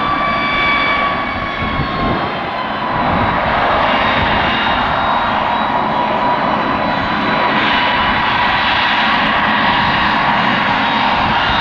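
Mitsubishi CRJ-900 regional jet's twin rear-mounted turbofans during its landing on the runway: a high whine that sinks slightly in pitch over the first couple of seconds, then a broad, steady jet noise that builds about three seconds in and holds.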